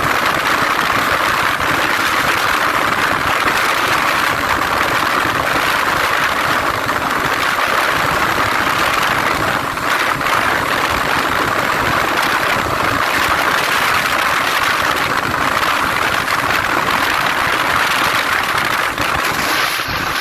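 Yamaha FZ250 motorcycle's single-cylinder engine running steadily at speed, under a loud, even rush of wind.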